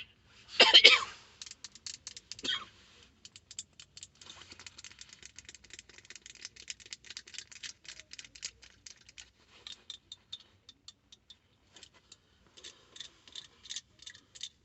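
Fingers tapping and clicking rapidly in close-miked ASMR style, a dense run of short sharp clicks, with a louder brush of handling about a second in and a pause before the clicking picks up again near the end.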